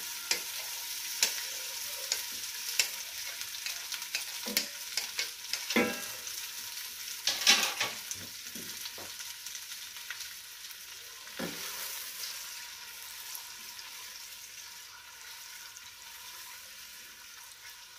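Sliced onions sizzling as they fry in hot oil in a stainless steel pot, freshly added to be browned, with scattered clicks and knocks as they are scraped in and stirred with a spatula. The sizzle slowly grows quieter.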